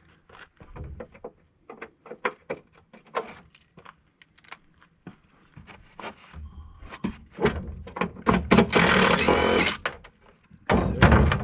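Metal parts of an air-conditioning unit being worked apart by hand: a run of separate sharp clicks and knocks, then a louder, denser rattling and scraping stretch about two thirds in.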